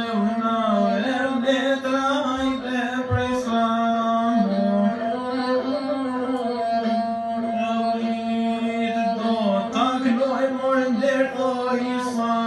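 A singer accompanying himself on the lahuta, the Albanian one-string bowed fiddle, in a traditional lahuta song. Long held notes with sliding ornaments between them, over the continuous bowed string.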